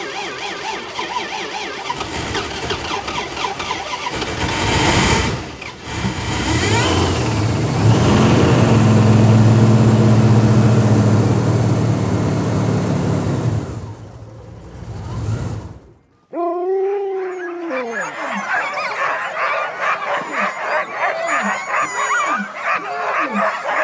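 A truck's engine cranking over and over in extreme cold without catching, with a steady low drone through its loudest stretch. It cuts off about sixteen seconds in, and sled dogs take over, yelping and barking with falling high-pitched cries.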